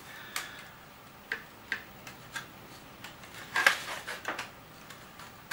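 Light clicks and taps of RC helicopter frame parts being handled in their packing box, scattered through, with a short burst of knocking and rustling a little past halfway.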